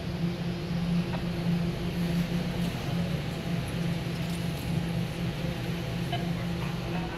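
Steady low machinery hum at one constant pitch, with a fainter higher hum above it.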